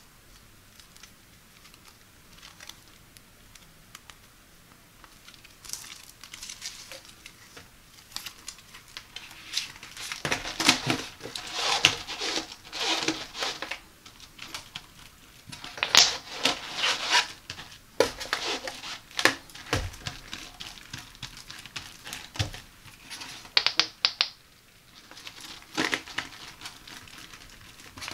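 Flexible plastic bath mat being handled by hand: bent, slid and smoothed flat, giving crinkling, rustling and small clicks in uneven bursts. The handling is faint for the first few seconds and louder from about six seconds in.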